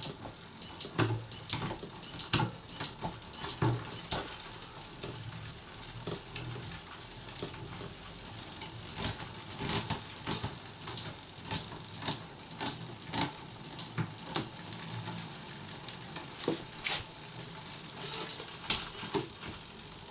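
Bicycle under the rider's weight making irregular sharp clicks and creaks, several a second, over a steady hiss. It is an abnormal noise that stops when the rear wheel is lifted, and the rider cannot place it, suspecting the saddle or the pedals.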